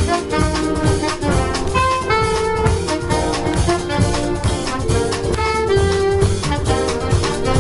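Jazz big band playing a samba chart live: the saxophone section and brass play held and moving chords over a drum kit's steady beat.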